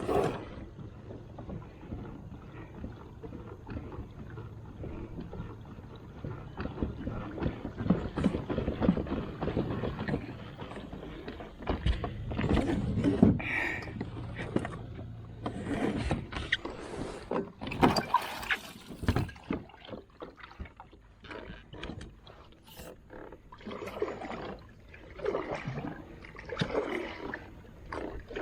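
Water splashing and lapping against a kayak's hull as it moves on the lake, with irregular knocks and rustles from the boat.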